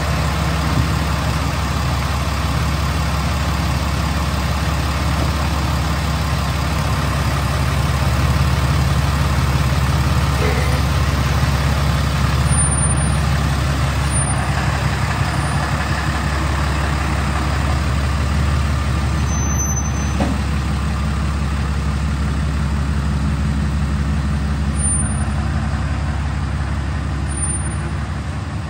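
RAM 3500 pickup engine running steadily at idle while the truck moves slowly.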